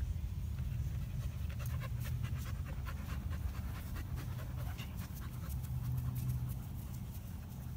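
Springer spaniel panting close by in a quick run of short breaths, over a steady low rumble.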